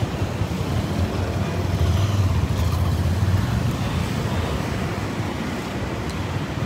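Low rumbling noise of street traffic, swelling for a second or so about two seconds in as something passes.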